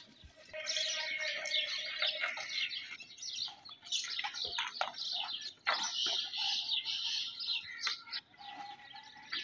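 Many small birds chirping, with quick short calls overlapping in a continuous chatter.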